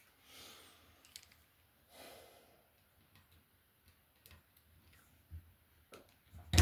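Small metal parts of a Lebel 1886 trigger group being handled as a screw is slid through: a few faint clicks and taps, with a sharper click at the very end. Two soft breaths in the first half.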